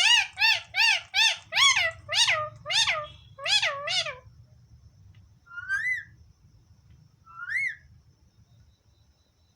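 Pet parrot calling: a quick run of about ten short cries that rise and fall in pitch, two or three a second, then two single rising calls a couple of seconds apart.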